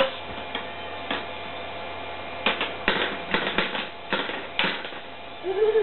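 Plastic balls clicking and knocking on a Kumon Kuru Kuru Chime ball-drop toy. There are scattered clicks at first, then a quick run of knocks and clatter from about two and a half to five seconds in.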